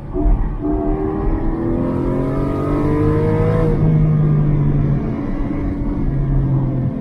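Porsche Cayman GT4's flat-six engine heard from inside the cabin under hard acceleration: its note climbs steadily in pitch for about three seconds, then drops near four seconds in and runs at a steadier pitch through the bends.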